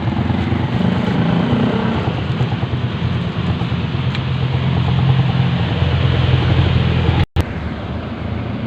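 A motor vehicle's engine running close by, its pitch stepping down about two seconds in and then holding steady. The sound cuts out for an instant about seven seconds in, leaving a quieter steady rush.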